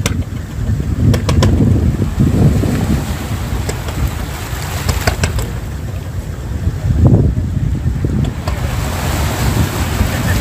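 Wind buffeting the microphone in a low, uneven rumble, over small waves lapping on a stony shore, with a few sharp clicks near the start and about five seconds in.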